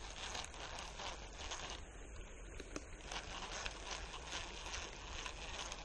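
Faint scratchy, ticking sound of a fishing reel being cranked to retrieve the line.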